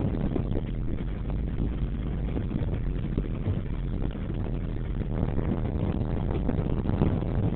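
A car driving, heard from inside the cabin: steady engine and tyre noise.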